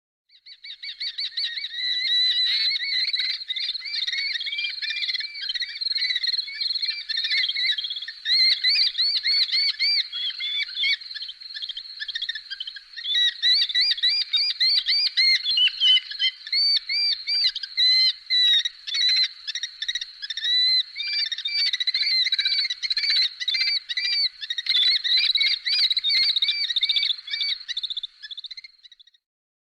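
Bird of prey calling: a long run of rapid, shrill, repeated call notes that eases off briefly midway and then carries on until it cuts off near the end.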